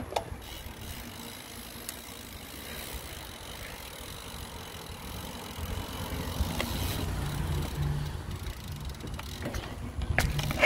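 Mountain bike riding noise picked up by a handlebar-mounted phone: steady rushing noise and rumble from the ride, with a few sharp rattles and knocks. The rumble gets heavier about halfway through.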